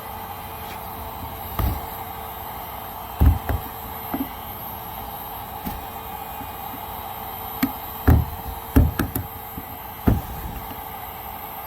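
Irregular hard knocks and clicks, about nine in all, bunched around three seconds in and again from eight to ten seconds in: old layers of melted-plastic patching being pried and pulled off a plastic kayak hull. A steady hum runs underneath.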